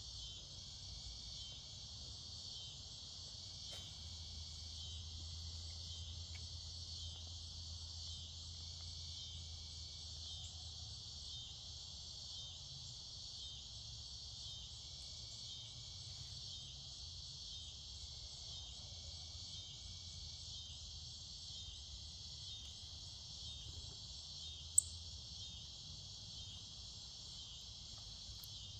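Insect chorus, likely crickets: a continuous high-pitched trilling that pulses in an even rhythm. A sharp, short high chirp sounds once near the end.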